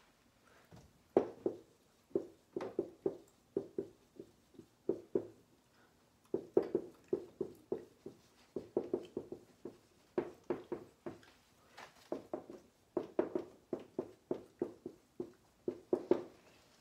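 Handwriting strokes: short scratchy bursts, about three or four a second, in uneven runs with brief pauses.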